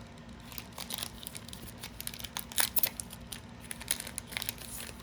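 Plastic or foil trading-card packaging crinkling as cards are handled: a run of short, irregular crackles and snaps.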